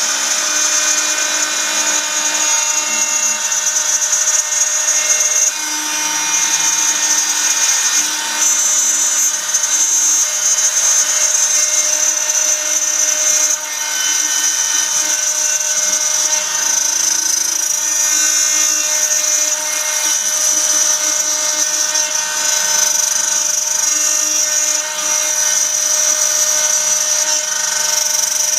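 CNC router spindle milling 3 mm acrylic sheet with a small end mill: a steady, high-pitched whine that holds throughout, its level dipping briefly a few times.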